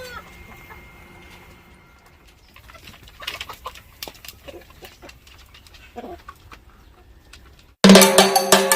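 Chickens clucking faintly, a few short calls among scattered light clicks. Loud upbeat Latin-style music with drums starts suddenly near the end.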